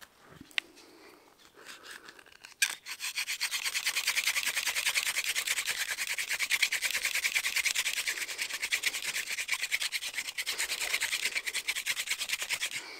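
Hand-drill fire by friction: a wooden spindle spun back and forth between the palms, its tip grinding in the notch of a wooden fireboard. It makes a fast, even, rhythmic rasping of wood on wood that starts about three seconds in, after a single knock, and stops just before the end.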